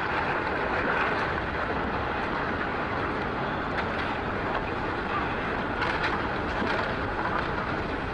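Tsunami floodwater rushing in a steady, loud rumble, with a few faint cracks of debris breaking in it about halfway through.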